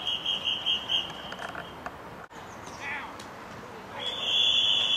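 Referee's pea whistle: a warbling blast that fades out about a second in, then a longer steady blast starting about four seconds in.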